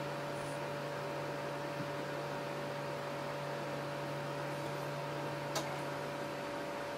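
Steady electrical hum with a light hiss, held on a few fixed tones; a single faint click about five and a half seconds in.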